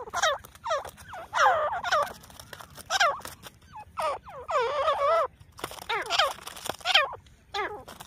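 Grey francolins (teetar) calling: loud, harsh repeated calls with a falling pitch, roughly one a second, some overlapping as two birds answer each other.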